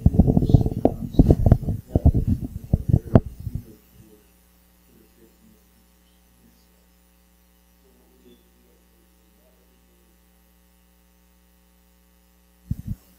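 Steady electrical mains hum from the meeting-room microphone and PA system. For the first three and a half seconds it sits under loud, muffled low rumbling with sharp knocks; after that the hum is left on its own.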